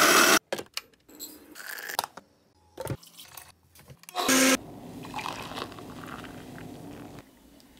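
Coffee-making sounds in quick succession: an electric coffee grinder buzzing for a moment, a few small clicks and knocks, a blender running briefly about four seconds in, then frothy blended coffee pouring into a mug.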